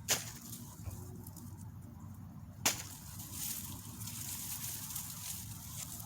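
Two sharp snaps about two and a half seconds apart, then steady rustling from about three seconds in, as tomato vines and foliage are handled.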